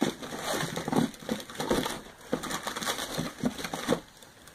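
Cosmetics packaging crinkling and rustling in irregular bursts as products are rummaged through by hand. It dies away shortly before the end.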